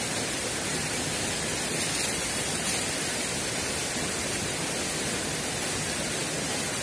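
Steady rush of flowing river water, an even hiss with no breaks.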